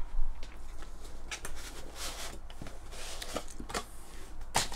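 Hands handling and opening a cardboard product box: scattered rustling, scraping and light clicks, with a sharper knock near the end.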